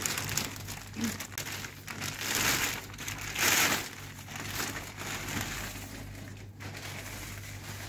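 Clear plastic wrap and bubble wrap crinkling and rustling as wrapped chair parts are handled and lifted out of a cardboard box, with the loudest rustles about two and a half and three and a half seconds in. A steady low hum runs underneath.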